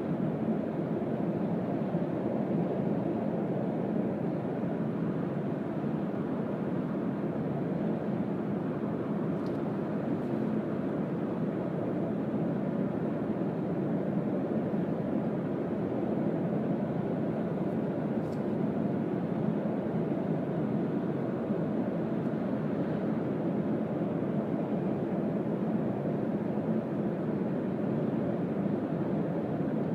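Steady cabin noise of a Mazda CX-3 at expressway speed in heavy rain: tyres hissing on the wet road, with wind and drivetrain hum, and a few faint ticks.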